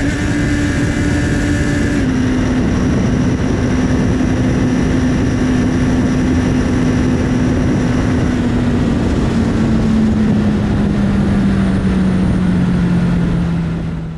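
2019 Honda CB650R inline-four engine running through an Akrapovic titanium exhaust, heard onboard over rushing wind. The engine note steps down in pitch twice in the first two seconds, then falls slowly and steadily as the revs drop. It fades out at the end.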